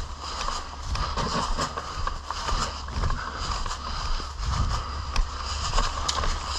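A player moving on foot, with footfalls and the rustle and knock of gear coming irregularly, over a steady low rumble of wind on the microphone.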